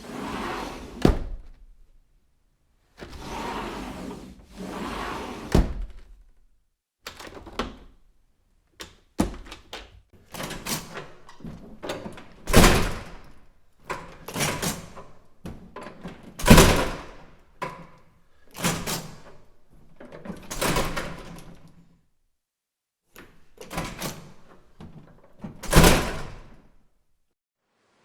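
A run of separate door sound effects: doors swinging and shutting with a thud or latch click, one after another with short silent gaps between them. A few of them shut hard.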